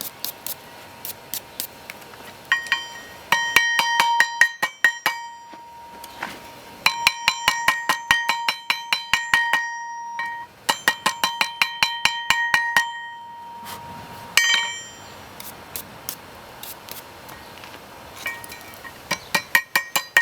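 Hammer blows on steel laid on a railroad tie plate used as an anvil, forging a small blade. The blows come in quick runs of several a second with pauses between, and each rings with a bright metallic tone.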